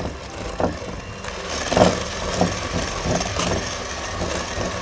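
Electric hand mixer running, its beaters churning butter, sugar and a freshly added egg in a glass bowl, with a few louder knocks.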